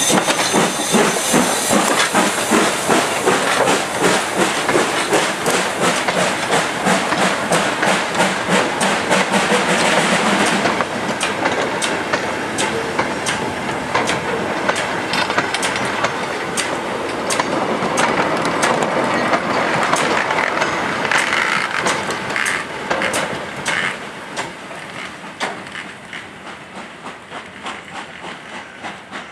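Steam locomotive 45379, an LMS Black Five, working a goods train past at close quarters: hissing steam and a rapid, regular exhaust beat, then the goods wagons clicking over the rail joints, fading as the brake van pulls away.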